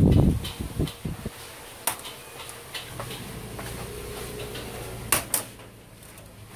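Front frame (bezel) of a 55-inch LCD TV being prised off by hand: a loud rumble of handling at the start, then scattered clicks and clacks, the loudest pair about five seconds in.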